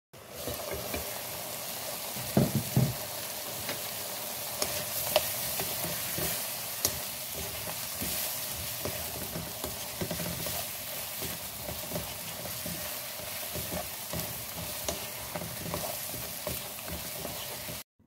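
Sliced round zucchini sizzling as it is stir-fried in oil in a pan, with a utensil clicking and scraping against the pan. A few louder thumps come about two and a half seconds in, and the sizzle cuts off abruptly near the end.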